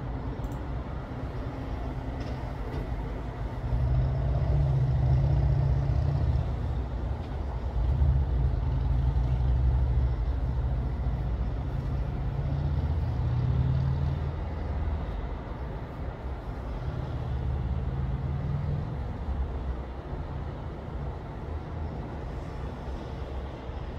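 Low rumble of road traffic with a steady background hiss, swelling louder for about ten seconds from around four seconds in and again briefly near the three-quarter mark.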